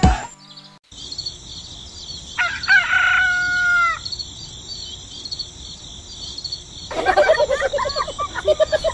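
Rooster crowing once, one long call about two and a half seconds in, over a steady background of chirping birds and insects. Near the end comes a run of quick, rapid calls.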